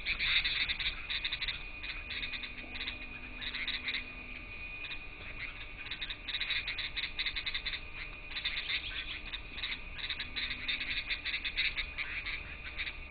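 Birds chattering in uneven bursts of rapid, scratchy calls, over a faint steady high tone.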